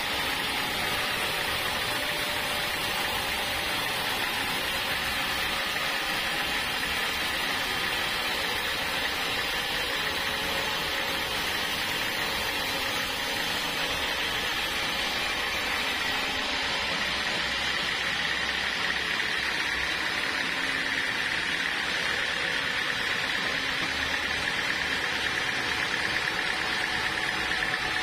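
Band sawmill running, its upright band blade sawing lengthwise through a large timber: a steady machine noise with a high whine that grows a little stronger about halfway through.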